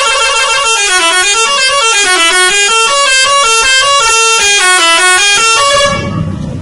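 Telolet bus horn: a bus's multi-tone musical horn sounding several notes at once in a melody that steps up and down in a repeating pattern, stopping about six seconds in. A low engine rumble comes up as it ends.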